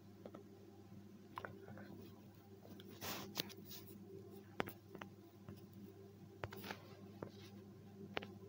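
Quiet room tone with a low steady hum, broken by scattered soft clicks and a couple of brief rustles, the sharpest click about halfway through.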